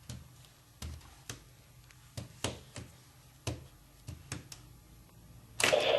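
A dozen or so irregular sharp clicks and taps over a faint low hum. Near the end a much louder, sustained noisy sound starts suddenly.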